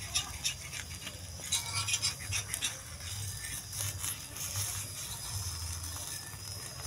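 Metal fork scraping and tapping against a pan as it loosens a fried egg cooked without oil from the pan's surface. The strokes are irregular, thickest in the second second or so, over a faint steady hiss of the egg frying.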